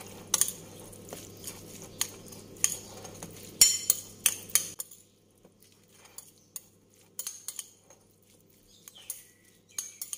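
Metal spoon scraping and clinking irregularly against a ceramic bowl while tossing chopped steamed termite mushrooms with their seasoning.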